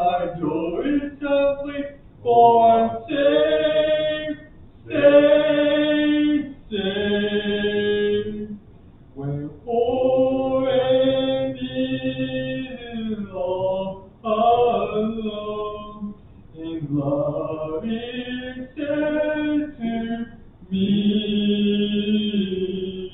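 Congregation singing a hymn, men's and women's voices together, in held phrases with short breaks between lines.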